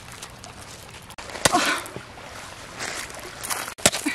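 River water lapping and trickling at a pebble shore, broken by a few sharp clicks and short scuffing noises. The loudest is a click with a brief burst of noise about one and a half seconds in, and another click comes near the end.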